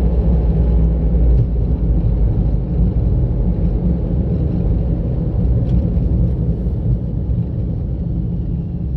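Car driving steadily, with low engine hum and tyre and road rumble heard from inside the car; it eases off slightly near the end.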